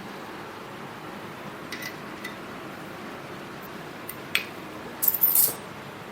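A few light metallic clicks and then a short cluster of clinks, like a steel lathe stop and tools being handled and set against metal, over a low steady hiss.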